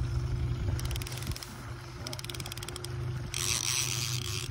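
Baitcasting fishing reel clicking in quick runs, three bursts of rapid ticks, while a hooked fish is fought, with a brief hissing burst near the end. A boat's outboard motor hums steadily underneath.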